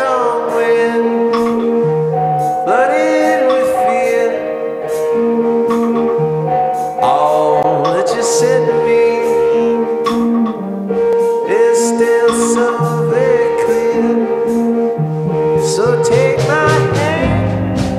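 Background music: a song with held notes, recurring rising slides in pitch and a steady beat.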